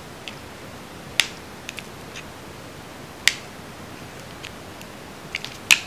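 Scattered small, sharp clicks of a precision screwdriver working a tiny hinge screw in a plastic eyeglasses frame, with three louder clicks about a second in, past the middle and near the end.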